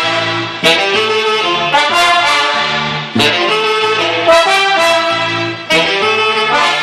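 A dance band's brass section of trombones and saxophones playing a loud instrumental passage in sharply accented phrases, with no singing.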